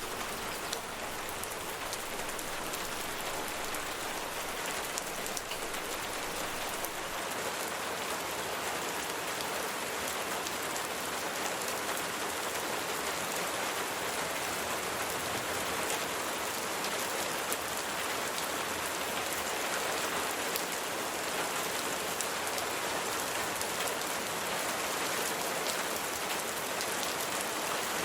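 Steady rain falling on a surface: an even hiss dotted with many small drop ticks, growing slightly louder over the stretch.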